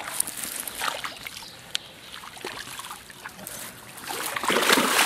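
Shallow water splashing and trickling as a large redtail catfish is worked out of a landing net by hand at the water's edge, with small knocks from the net's frame. The splashing grows louder about four seconds in.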